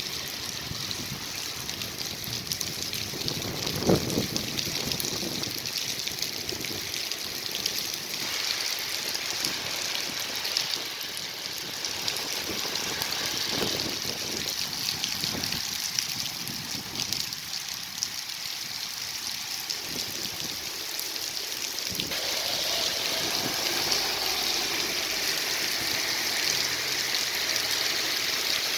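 Heavy rain falling steadily, with rainwater streaming and trickling as runoff. A brief thump sounds about four seconds in.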